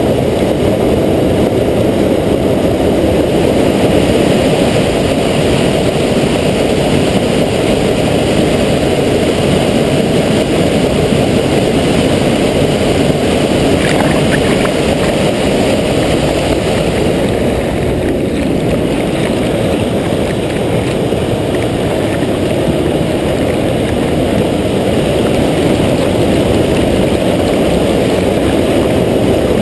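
Floodwater rushing and churning over a weir, heard as a steady, muffled rumble through a GoPro's waterproof housing with the camera at and under the water surface.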